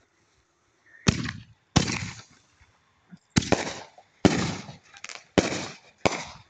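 Aerial fireworks going off overhead: about six loud, sharp bangs at uneven intervals, each dying away within about half a second.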